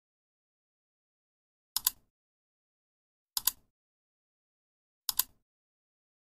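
Three mouse-click sound effects, about a second and a half apart, each a quick double click. Silence in between.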